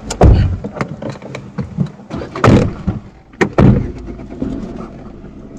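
Several heavy low thumps and knocks over a steady low rumble. The loudest come about a quarter second, two and a half and three and a half seconds in.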